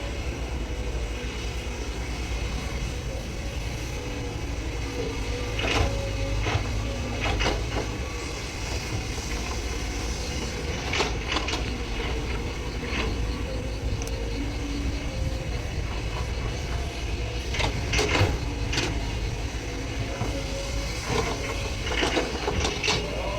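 SANY hydraulic excavator's diesel engine running steadily, with scattered sharp clanks from the bucket and boom as it works the sticky clay soil.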